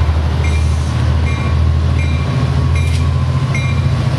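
Departing Metrolink train: the locomotive's diesel engine throbs low and steady while its bell rings in a regular beat, about one strike every three-quarters of a second. A single sharp click sounds about three seconds in.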